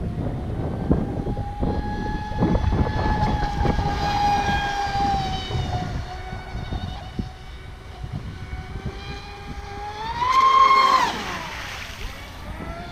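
Traxxas Spartan RC speedboat's brushless motor whining as it runs across the water. The pitch holds fairly steady, then climbs sharply about ten seconds in as the throttle is opened and falls away again.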